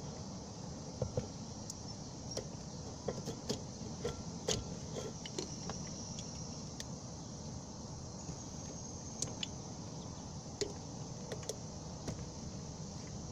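Scattered light clicks and scrapes of hand work on a wiring harness as electrical tape is cut away from the wires with a blade, over a steady low background noise.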